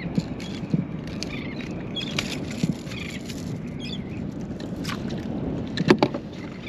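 Water sloshing against a kayak hull under steady wind, with scattered small clicks and knocks of gear and handling on the kayak, and a pair of sharp knocks about six seconds in.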